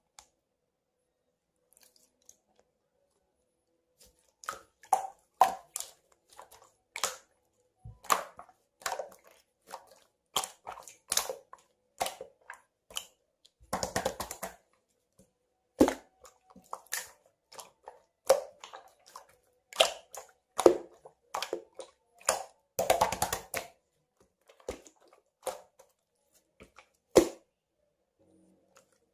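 Irregular sharp clicks and crackles, roughly one or two a second, with two short, denser rattling bursts.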